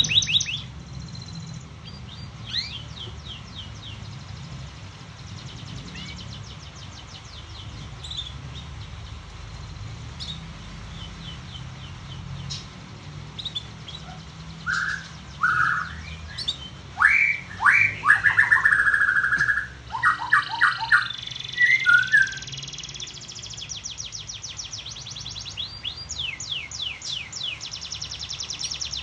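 Canaries chirping and singing in fast high trills, with a run of louder, lower whistled notes about halfway through.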